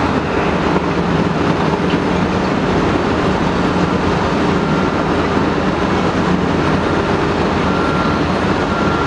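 Cat 330D L hydraulic excavator's C9 diesel engine working under load, a steady heavy rumble, as the machine swings and sets down a concrete jersey barrier. A faint high whine comes and goes in the second half.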